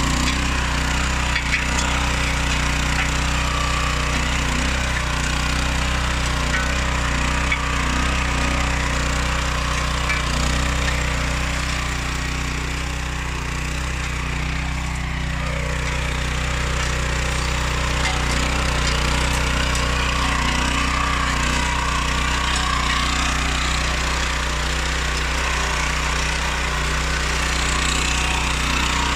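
Oleo-Mac MH 150 RK motor hoe's 700 H petrol engine running steadily, easing slightly for a few seconds around the middle.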